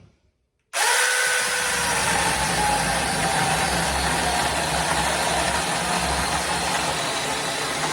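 Samyoung 26 V cordless 4-inch mini chainsaw starting suddenly under a second in and running steadily as it cuts through a piece of wood, its motor pitch sagging slightly under the load.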